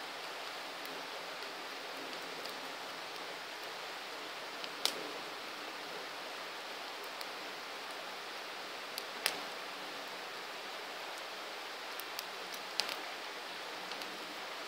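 Campfire burning with a steady soft hiss, broken now and then by sharp crackling pops of burning wood, three of them louder than the rest.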